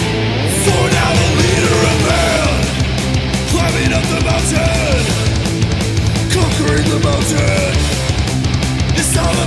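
Loud heavy-metal band music with no vocals: a dense, driving backing with a lead line that bends and slides up and down in pitch.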